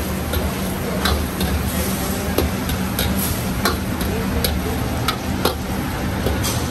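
Metal ladle stirring pork pieces in a wok, clinking and scraping against the steel about every half second to second over a steady sizzle of frying, with a low hum underneath.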